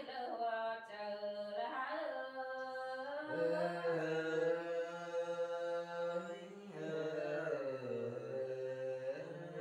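Unaccompanied singing by one voice in a drawn-out, chant-like style, holding long notes that glide slowly, with the pitch dropping lower near the end.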